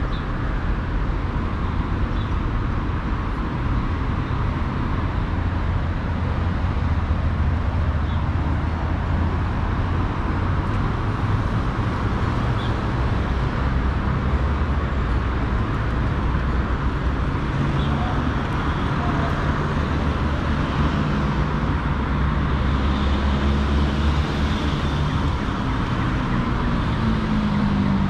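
City road traffic: a steady rumble of cars passing, engines and tyres on the road. Near the end one vehicle's engine note rises as it accelerates.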